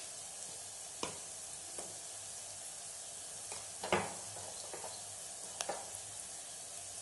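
Sliced onions frying in hot oil: a steady sizzle with a few sharp clicks, the loudest about four seconds in.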